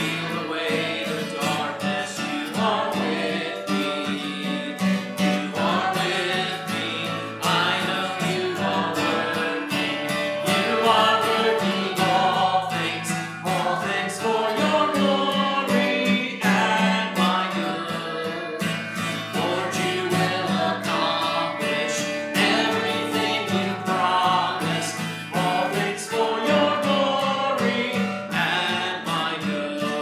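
An acoustic guitar strummed along with sung vocals of a congregational worship song, thickened with added effects that suggest other voices and instruments.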